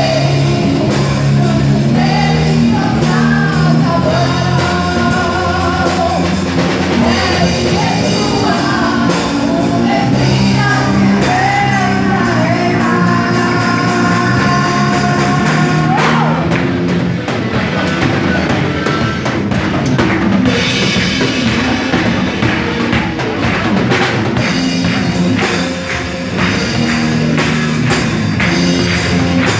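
Worship band music with drum kit and bass under a sung melody; the singing is heard mostly in the first half, then the band plays on with the drums.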